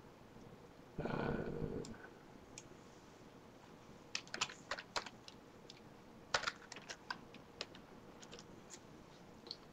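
Typing on a computer keyboard: irregular keystrokes in short clusters from about four seconds in. About a second in, a short noisy burst lasting under a second.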